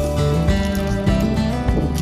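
Background music with sustained notes and a moving bass line.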